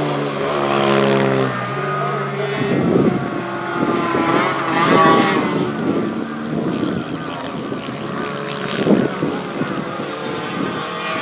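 Several racing motorcycles' engines at high revs passing on track. A steady engine note for the first couple of seconds gives way to overlapping rising and falling notes as bikes go by.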